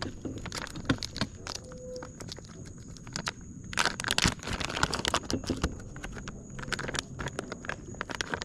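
Irregular clicks, taps and rustling from an angler moving about on a wooden dock and handling a fishing rod, with a denser cluster of knocks about four seconds in.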